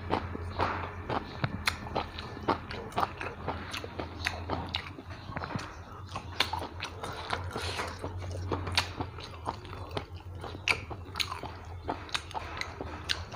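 Close-miked chewing as a man eats rice and curry by hand, with many small mouth clicks throughout and a steady low hum underneath.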